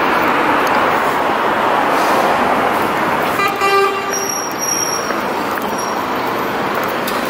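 Steady street traffic noise. A short horn-like toot sounds about three and a half seconds in.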